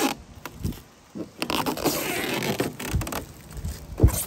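Handling noise on a rooftop air conditioner: rustling and scraping with scattered clicks, then a sharp knock near the end.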